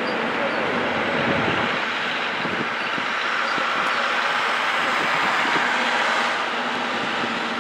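Steam-hauled passenger train of blue 12-series coaches moving through the station, a steady rolling noise of wheels on rails.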